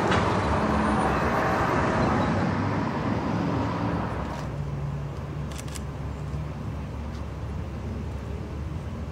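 Road traffic: a vehicle passes, loudest over the first few seconds, then dies away to a steady low rumble of distant traffic.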